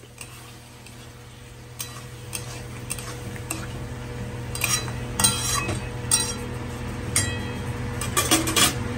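Metal spoon stirring chicken curry in a metal kadai, scraping and clinking against the pan. The clinks get louder and closer together from about halfway in, with a quick run of them near the end.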